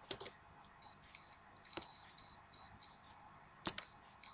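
Faint, scattered clicks of a computer keyboard and mouse: one at the start, one about two seconds in, and two close together near the end.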